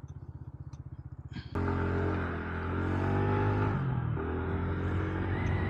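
Kymco KRV Roma GT scooter's 175 cc water-cooled four-valve engine idling with a low, even pulse. About a second and a half in, the throttle opens and the engine pulls the scooter away, holding a steady drone that dips and rises in pitch.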